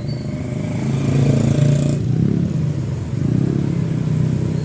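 Motorcycle engine running while riding, its pitch rising as it speeds up about a second in, then easing back and picking up again.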